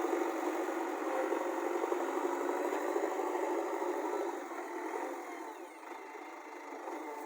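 JCB backhoe loader's diesel engine running steadily with a mechanical clatter, getting quieter from about four seconds in.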